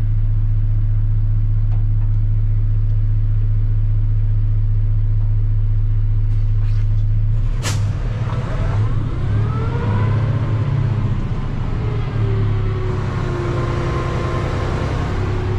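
Large delivery truck's engine running at a steady idle. A little after halfway there is one sharp click, then the engine note wavers and faint gliding tones rise and fall.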